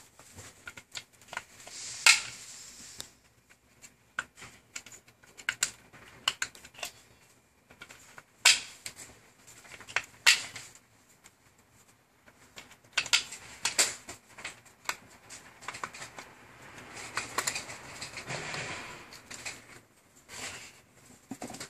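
Batteries being fitted into the plastic battery compartment of a laser level: sharp plastic clicks and knocks, a few of them loud, scattered among quieter handling and rustling noises.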